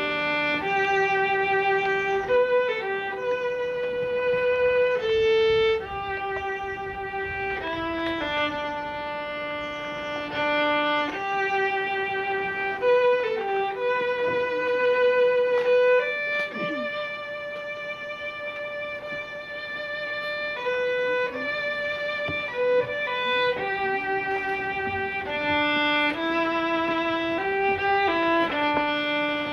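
Solo violin being bowed, playing a slow melody of long held notes that move stepwise up and down.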